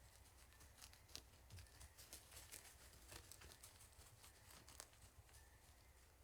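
Faint, irregular scratching and crackling clicks, thickest in the middle: a great gray owl stomping about on its nest of material in a hollow tree snag.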